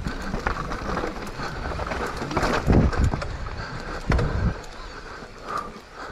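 E-mountain bike descending a dirt forest trail at speed: tyres running over dirt and roots and the bike rattling, with knocks throughout and two heavy thumps, about two and a half and four seconds in.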